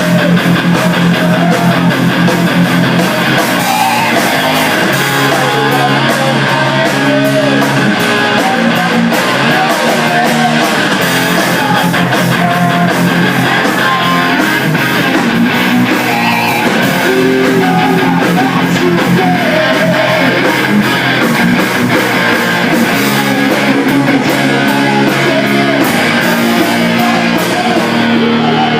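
Rock band playing an instrumental passage: electric guitars over bass guitar and drums, with a steady beat.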